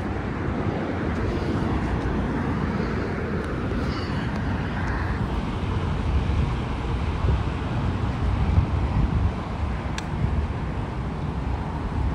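Wind buffeting the microphone over a steady low rumble of highway traffic.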